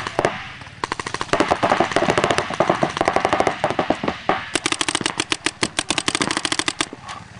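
Paintball markers firing in rapid strings of shots, many a second, with a sharper, louder string from about halfway through that stops shortly before the end.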